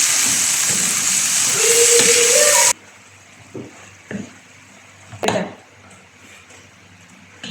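Hot dog pieces, onion and garlic sizzling in oil in a frying pan: a loud, steady hiss that cuts off abruptly under three seconds in. After it come a few light knocks of kitchen utensils.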